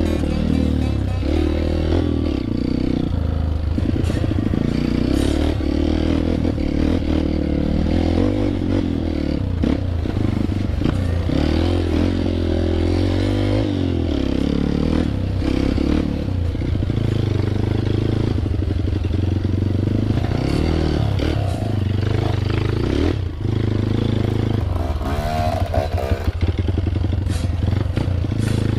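A single-cylinder trail motorcycle engine running under load on a rough dirt track. The revs rise and fall with the throttle, with clattering and knocks from the bike over the ground.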